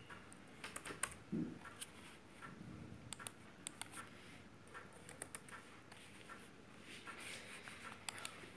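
Scattered clicks from a Dell laptop's touchpad and keys, a few to several a second, some sharper than others.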